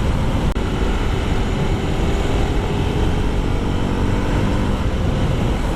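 Honda CRF300L's single-cylinder engine running steadily at cruising speed under a loud, even rush of riding noise.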